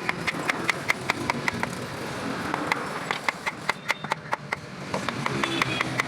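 Fast, evenly spaced sharp taps, about six a second, each with a brief ringing note, pausing briefly about two seconds in and then resuming.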